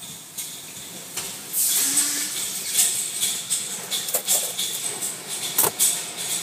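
Automatic tunnel car wash running, heard from inside the car: a hiss of spraying water sets in about a second and a half in and carries on, with irregular clicks and knocks.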